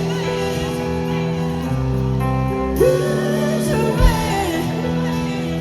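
Live rock band playing with long held sung notes over guitar, heard in a large hall.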